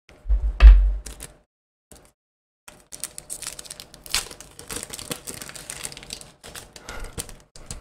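Foil booster-pack wrapper of Pokémon cards being crinkled and torn open by hand: a dense crackling that runs for several seconds from about a third of the way in. It follows a loud low thump about half a second in.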